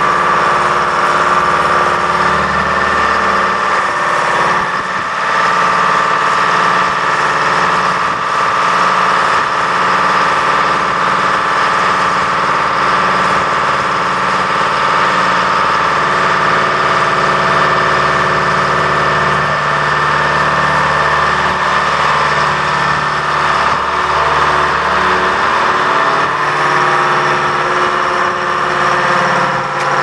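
Detroit Diesel engine of an Al-Jon 400 logger/baler running steadily under the grapple boom's work, with a steady high whine over the engine note.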